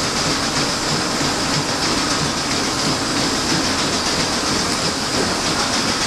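Horizontal stationary steam engine belt-driving a sawmill, running steadily with a continuous steam hiss and an even, rapid mechanical clatter from its moving rods and valve gear.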